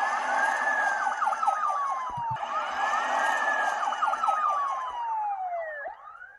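Police car sirens wailing from an animated film's soundtrack played on a screen: several overlapping tones that sweep quickly up and then slowly fall, starting over about every two and a half seconds, over the noise of the moving cars. They fade near the end.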